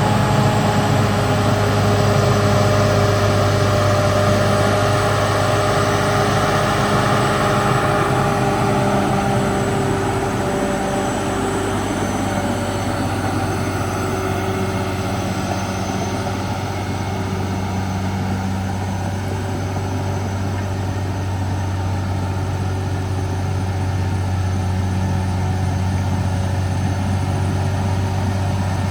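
Caterpillar D6R XL bulldozer's diesel engine running steadily: a strong deep hum with steady higher tones on top. The brighter upper part of the sound eases off about eight seconds in.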